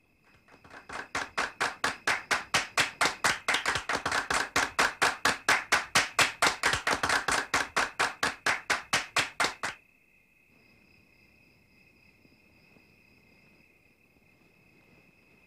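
A crowd applauding in a steady unison rhythm, about five claps a second, swelling over the first second or two and stopping abruptly about ten seconds in. Crickets trill steadily underneath and are heard faintly on their own after the applause ends.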